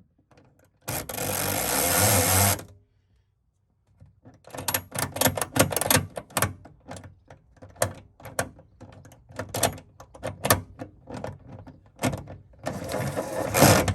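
Cordless impact wrench driving a bolt home in two runs of about two seconds each, one about a second in and one near the end. Between them, a string of irregular clicks and rattles from handling the parts.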